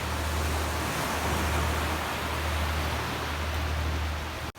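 Steady rushing noise of wind and sea waves on the shore, with a deep rumble underneath; it cuts out for an instant near the end.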